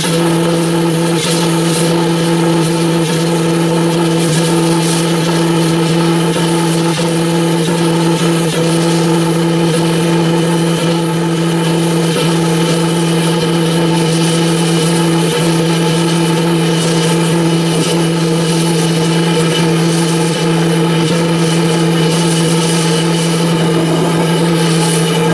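Homemade valveless pulse jet engine with a pneumatic-valve intake running on a bench, a loud, steady drone at one constant pitch. Air is fed into only one of its intake holes, so it runs as a pulse jet but short of the full speed it is designed for.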